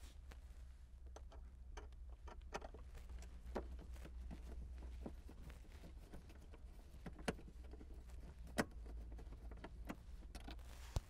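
A small Phillips screwdriver unscrewing a screw from plastic dashboard trim: faint, scattered clicks and ticks over a low hum.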